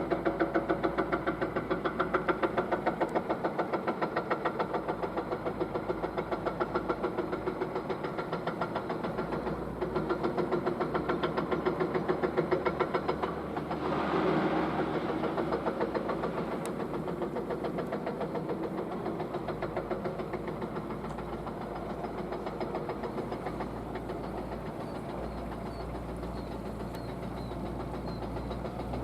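Excavator's diesel engine running with a fast, even knocking pulse, louder in the first half. A brief rush of noise comes about halfway through.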